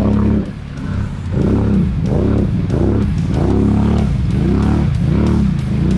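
ATV engine revving up and down over and over as the quad churns through deep muddy water, the throttle worked in quick repeated surges after a brief lull near the start.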